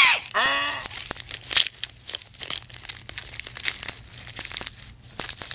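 Leaves rustling and twigs crackling in a run of irregular small snaps and crunches as a giraffe browses, stripping leaves from a tree. In the first second the end of a honking animal call fades out.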